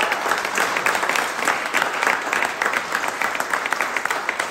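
A group of people applauding, many dense hand claps that slowly thin and fade toward the end.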